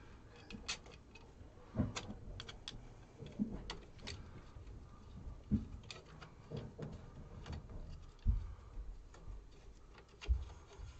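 Irregular small clicks and taps of a screwdriver and screw at a 3D printer's hot-end assembly as a mounting screw is worked into its hole through the heatsink fins, with a few soft knocks.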